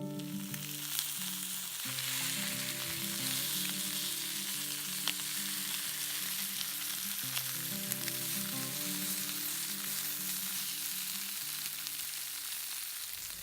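A steady dense hiss with scattered crackling ticks, under quiet acoustic guitar music; it starts and cuts off abruptly.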